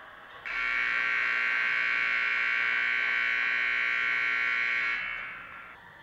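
Ice rink's game horn sounding one long, steady buzzing blast of about four and a half seconds, starting abruptly and dying away in the arena's echo as it stops.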